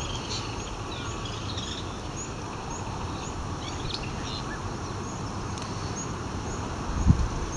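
Small birds chirping over a steady outdoor background hiss. A short high chirp repeats about once a second among a few other calls, and there is a low thump on the microphone near the end.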